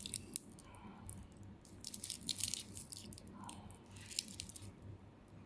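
Metal Jubilee watch bracelet clinking as it is handled: clusters of small crisp clicks near the start, around two seconds in and again around four seconds in.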